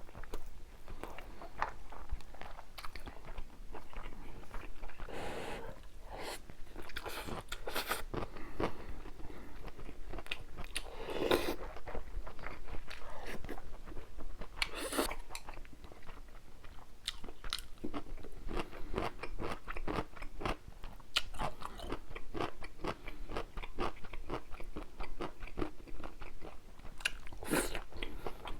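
A person eating close to the microphone: steady chewing with many crunchy bites and small mouth clicks, a few louder bites standing out now and then.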